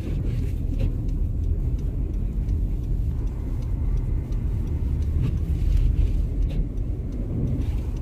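Steady low rumble of a car driving on a snow-covered road, heard from inside the cabin, with faint scattered ticks.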